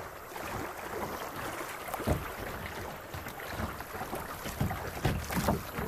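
Flowing creek water rushing steadily around a kayak, with brief splashes about two seconds in and again near the end.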